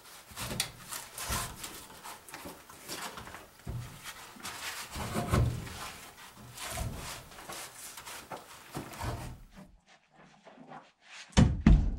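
Irregular wooden knocks, bumps and clatter as pieces of log are handled and shifted, with one heavy thud near the end.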